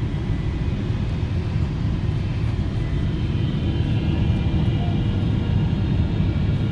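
Steady low rumble of a Boeing 777's engines and airflow heard inside the passenger cabin, with a faint high whine joining about three seconds in.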